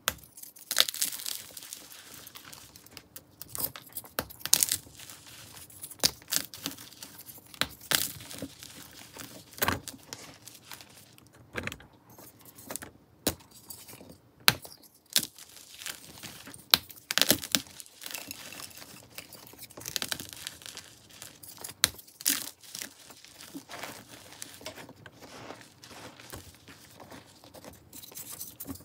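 Hands crushing and crumbling dyed chalk blocks: dry, irregular crunches and crackles, with sharper snaps now and then as pieces break off.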